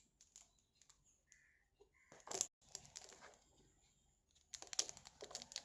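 Faint scattered clicks and plastic rustling from food packaging being handled and a container being opened, with a short cluster of sharp clicks midway and a busier run of clicks near the end.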